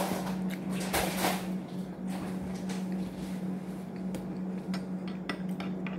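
Flaky croissant being torn apart and a paper wrapper rustling: a run of crackles and small clicks over a steady low hum.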